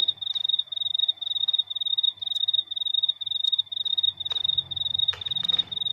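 An animal calling in the background: a high, rapid pulsing trill that comes in short bursts two to three times a second and never stops. A few sharp clicks of a phone case being handled sound over it in the second half.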